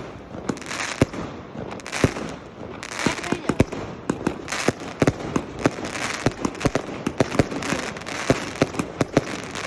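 Fireworks going off: an irregular string of sharp bangs, several a second, mixed with hissing, crackling bursts that recur about once a second.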